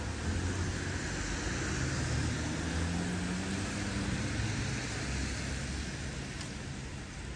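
A car passing on a road, its engine rumble and tyre hiss swelling and then fading away near the end.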